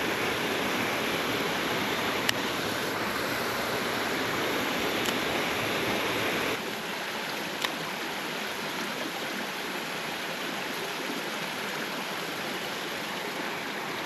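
Mountain stream water running steadily over rocks. About six and a half seconds in the rushing suddenly drops to a quieter level, with a few faint ticks here and there.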